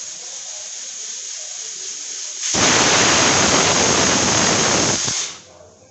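Aluminium stovetop pressure cooker letting off steam. A steady hiss builds at the weight, then about two and a half seconds in the whistle blows loudly for nearly three seconds and cuts off. The whistle is the sign that the cooker has reached full pressure.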